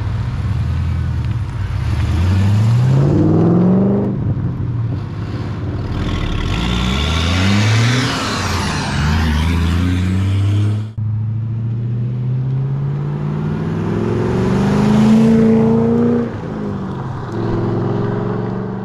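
Holden VX SS Commodore's LS1 V8, breathing through aftermarket headers and an X-Force exhaust, revving up, easing off and climbing in pitch again. After a sudden break about halfway through, it runs more steadily with a slowly rising pitch that falls away near the end.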